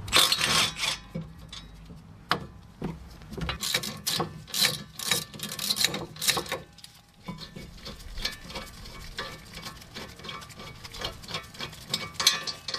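Ratchet wrench clicking in short irregular runs, backing out the rear brake caliper bracket's 13 mm bolts.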